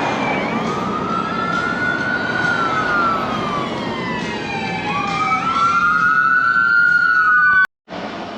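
Emergency vehicle sirens wailing, their pitch sliding slowly up and down, two of them overlapping at times, over a steady rush of noise. The sound cuts off abruptly near the end, followed by a quieter steady hum.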